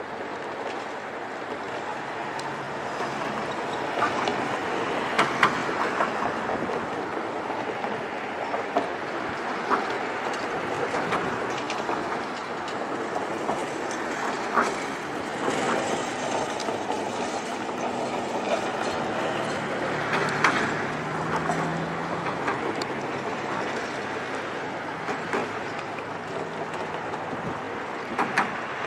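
Steady rushing outdoor background noise with a few faint knocks and clicks scattered through it.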